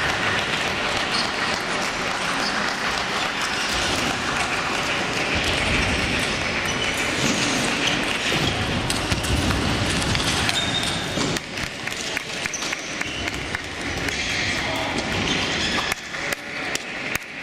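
Table tennis ball clicking off bats and table during a rally, over the steady noise of a large sports hall with other tables in play. The background noise drops about eleven seconds in, and a few sharp ball clicks stand out near the end.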